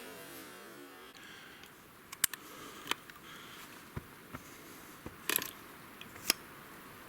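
A few scattered, sharp clicks and knocks over a faint steady hiss.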